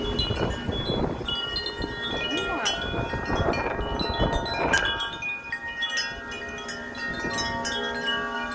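A set of wind chimes clanging and ringing hard in a big gust of wind, many overlapping tones struck again and again. Wind buffets the microphone with a low rumble through about the first half, then eases while the chimes keep ringing.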